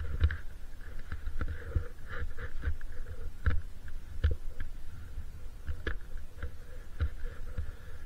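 Skis and poles working through deep snow, with irregular crunches and knocks over a steady low rumble on the microphone.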